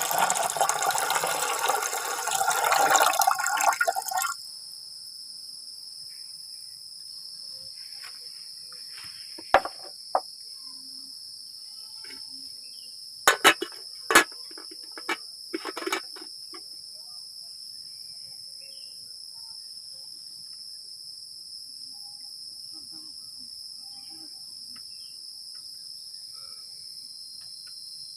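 Forest insects chirring steadily at a high pitch. A loud rushing noise cuts off suddenly about four seconds in, and a few sharp knocks or clicks come in the middle.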